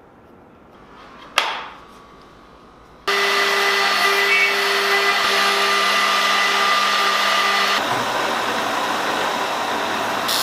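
One sharp knock, then an electric router starts abruptly about three seconds in and runs with a steady high whine. Near the end its sound turns lower and rougher.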